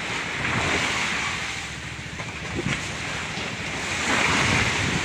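Choppy sea waves splashing against the hull and bamboo outrigger of a fishing boat, with wind buffeting the microphone; the rush swells a little about four seconds in.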